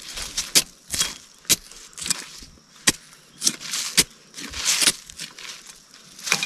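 Machete blade striking and scraping into dry, sandy soil, irregular sharp chops roughly every half second to second with gritty scraping in between. This is the sound of digging out a jicama tuber.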